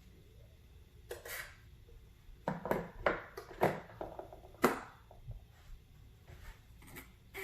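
Kitchen handling noises: a string of short knocks and clatters of utensils and containers, most of them bunched near the middle with the sharpest about two thirds of the way in.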